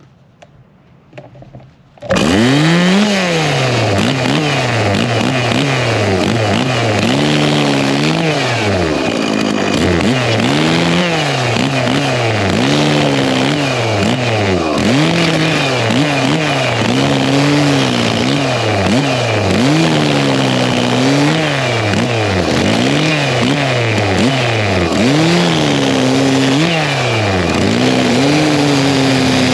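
Stihl MS 271 two-stroke chainsaw starting up about two seconds in, then cutting almond wood: the engine revs up and drops back again and again as the chain is loaded in the cut and freed.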